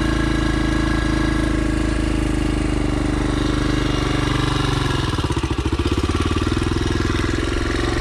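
Small dirt bike engine running steadily. About five seconds in it drops to low revs and lugs with separate firing pulses, then picks up again.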